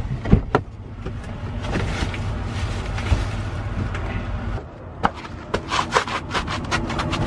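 Hands rummaging and rubbing around in a truck cab over a steady low rumble, with a couple of sharp clicks near the start. About four and a half seconds in, the rumble falls away and quick crunching footsteps on gravel follow, about four steps a second.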